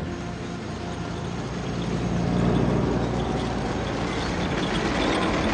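Engines of a military convoy, a jeep and an armoured personnel carrier, running as the vehicles drive, getting louder from about two seconds in.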